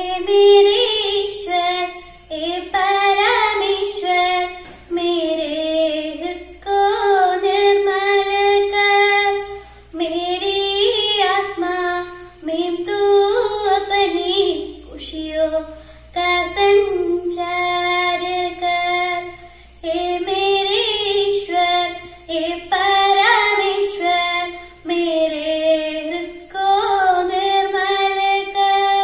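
A young girl singing a prayer solo and unaccompanied, in phrases of about two seconds with long held notes and short breaths between them.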